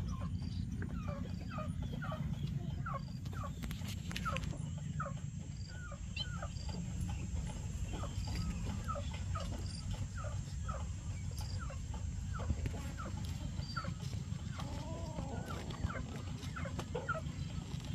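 Chickens calling: many short falling chirps, two or three a second, over a steady low rumble.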